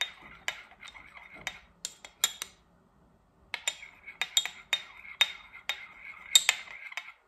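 Metal teaspoon stirring a little yeast and milk in a small ceramic bowl, clinking and scraping against the sides about twice a second with a short ring after each clink. The clinks pause for about a second midway, then resume.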